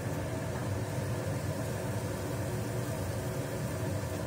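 Kitchen range hood exhaust fan running steadily, a constant low hum with an even rush of air.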